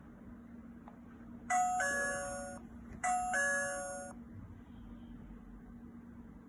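Smart door lock's keypad doorbell playing its electronic two-tone ding-dong chime twice, about a second and a half apart, each chime fading away.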